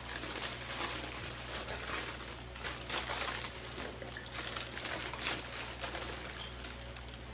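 Shipping packaging being handled, with a continuous rustling and crinkling and many small clicks.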